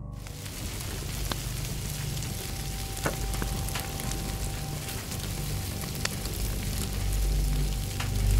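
Crackling-fire sound: a steady hiss with scattered sharp pops, over a low rumble. A faint steady tone joins about three seconds in.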